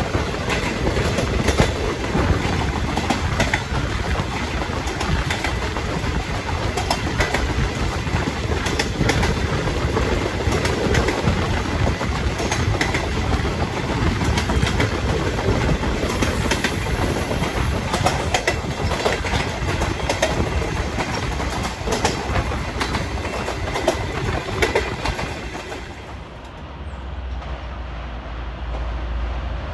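Train passing close by, its wheels clattering over the rail joints in an irregular run of clicks over a rumble. About 26 seconds in the clatter falls away, leaving a low rumble.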